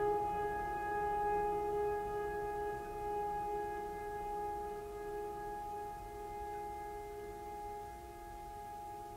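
Background music: a held chord of several sustained notes that slowly fades.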